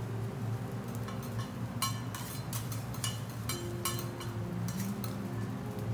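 Metal teppanyaki spatula and scraper clinking and tapping on the steel griddle, a quick run of sharp clicks from about a second in, over a steady low hum.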